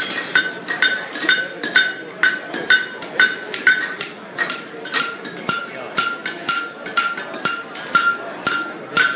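Blacksmith's hand hammer striking hot steel on an anvil at a steady pace, about two blows a second, each blow giving a bright ring from the anvil. A low murmur of voices runs underneath.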